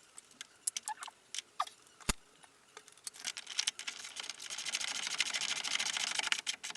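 Ratchet wrench tightening a bolt on a car's front suspension: a few separate metal clicks and clinks, then, from about halfway in, a fast continuous ratcheting that stops just before the end.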